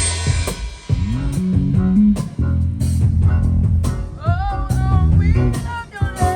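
A live band sound check: bass guitar notes, with a slide up about a second in, under drum hits. From about the middle, a higher melodic line plays bent, wavering notes.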